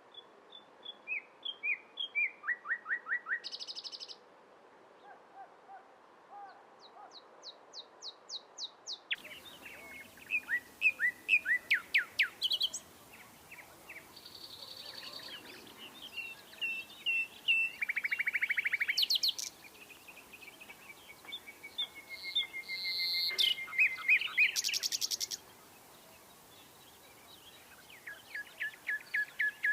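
Nightingale singing in separate phrases of rapid repeated notes, buzzy rattles and clear whistles, with short pauses between phrases. About twenty seconds in comes one long whistled note that slowly rises. A faint background hiss comes in about nine seconds in.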